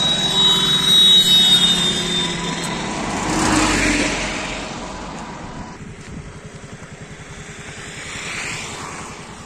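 A motorcycle passing close by on the road: its engine grows louder, is loudest about four seconds in as it goes past, then fades away.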